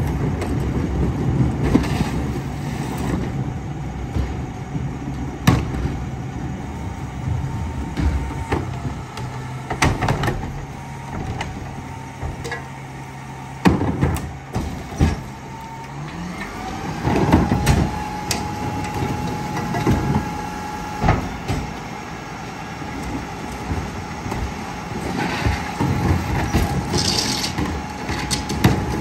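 McNeilus rear-loader garbage truck on a Mack TE chassis: the diesel engine idles amid scattered knocks and bangs of containers, then revs up about halfway through as the hydraulic packer is run, with a steady higher whine.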